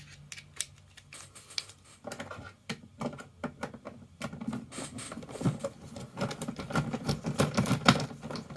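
Small plastic and metal clicks as screwdriver bits are handled in a plastic bit case and a bit is fitted into the screwdriver. From about halfway on comes a dense run of rapid clicking, typical of a ratcheting screwdriver backing out the screws of the optical drive's sheet-metal cover.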